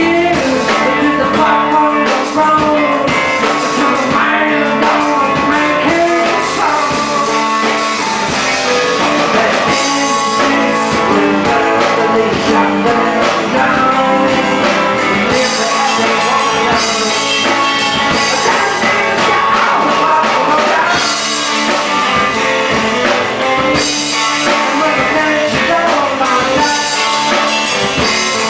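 Live band playing a blues-rock song: strummed acoustic guitar, electric guitar, bass guitar and drum kit, with a male singer on vocals.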